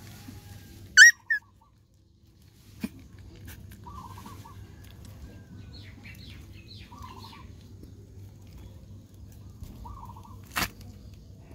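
Two short, sharp, high-pitched animal squeals about a second in, followed by faint short calls every few seconds and a single sharp knock near the end, over a low steady hum.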